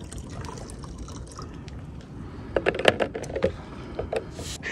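Light plastic clicks and knocks as a shower pump's hose is worked down into the neck of a plastic water jug, busiest about three seconds in.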